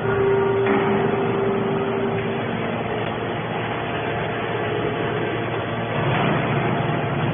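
Baling machine running: a steady mechanical drone, with a held whine over it for the first two seconds or so.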